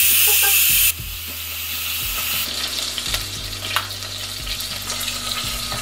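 Instant Pot Duo pressure cooker venting steam through its quick-release valve: a loud, high hiss that drops suddenly to a quieter hiss about a second in, with light crackling and spitting as the remaining pressure escapes after pressure cooking.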